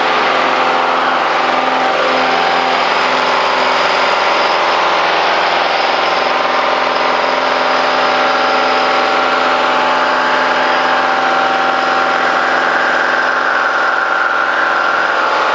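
Cessna 210D's six-cylinder Continental engine and propeller running steadily at full takeoff power, heard from inside the cabin through lift-off and the initial climb.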